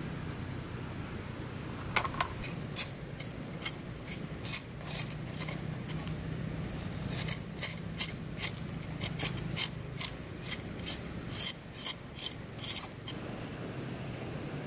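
A large knife cutting through the crisp, charred skin of a grilled pork leg: a series of sharp crunching scrapes, roughly two a second, starting about two seconds in and stopping shortly before the end.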